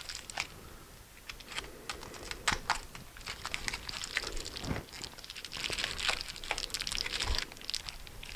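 Plastic packaging, bubble wrap and a plastic bag, crinkling and rustling as it is handled and opened by hand, with many irregular sharp crackles.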